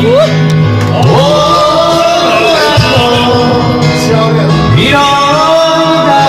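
Karaoke singing: a voice singing long held, sliding notes over a loud backing track.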